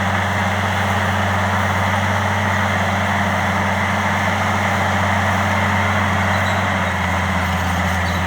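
Heavy diesel engine of earthmoving equipment running steadily with a deep hum, its tone shifting slightly a little before the end.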